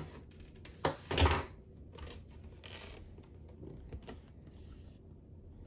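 Cardboard product box being handled and pried at: a string of short scrapes, rustles and knocks, the loudest about a second in.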